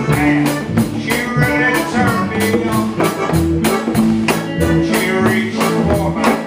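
Live band music: a drum kit keeps a steady beat with cymbals under a bass guitar and other instruments playing held notes.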